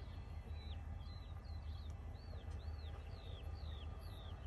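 A songbird calling a quick series of short, arched, falling chirps, about three a second, over a steady low rumble.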